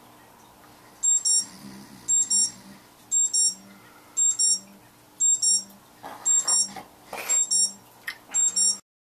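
Electronic alarm clock beeping in short, high bursts about once a second, going off as a morning wake-up alarm. Bedding rustles from about six seconds in, and the beeping stops suddenly near the end.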